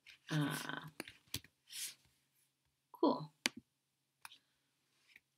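A few separate, sharp clicks of computer keyboard keys being typed, spaced out across the few seconds. A voice hums briefly near the start and says "cool" about halfway through.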